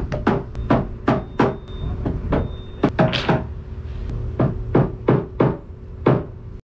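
Hammer blows on a thick wooden plank, sharp strikes at about three a second with a short pause about halfway, stopping suddenly near the end.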